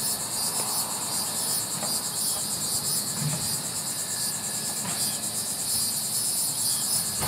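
A steady, high-pitched chorus of insects, chirring in a fast even pulse.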